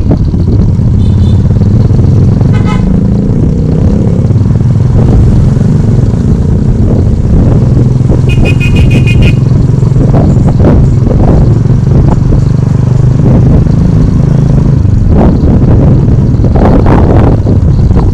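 A road vehicle's engine running steadily under wind rush on the microphone while riding along. About eight seconds in, a horn sounds for about a second in quick pulsing beeps.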